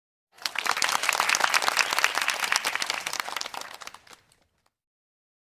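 A crowd applauding: many hands clapping at once, starting about half a second in and fading away after about four seconds.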